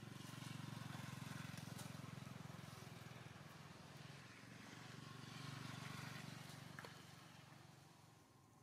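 Faint low hum of a motor vehicle engine, swelling twice and fading toward the end.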